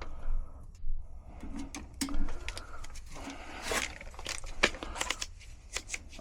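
A run of sharp clicks, taps and short scrapes from close-up handling of metal electrical parts and tools, over a low steady hum.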